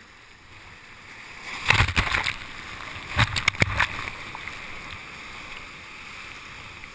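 Ocean surf washing over a Dagger Axiom whitewater kayak as it rides a breaking wave: a steady rush of water with two bouts of loud splashing spray, about two seconds in and again about three and a half seconds in.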